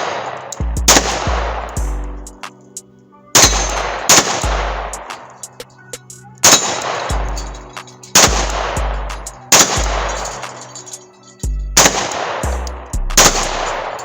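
Loud single gunshots every one to three seconds, each trailing off in a long echo, over music with a deep repeating bass.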